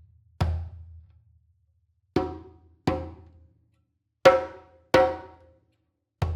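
Djembe struck by hand with single strokes spaced by pauses: a deep low stroke about half a second in, then two pairs of brighter, ringing strokes, the second pair the loudest, and another deep stroke right at the end.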